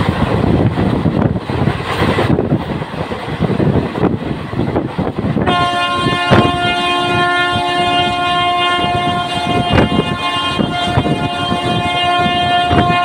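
Running noise of a passenger train moving at speed, heard from a coach window. About five and a half seconds in, the locomotive's horn starts and holds one long, steady chord to the end, with a few sharp knocks from the wheels over rail joints.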